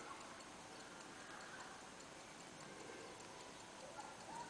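Circa-1896 IWC pocket watch movement ticking faintly, a rapid, even tick.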